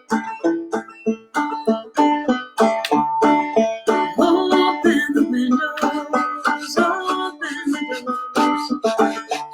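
Clawhammer banjo playing an instrumental passage: quick plucked notes in a steady, even rhythm, with no singing.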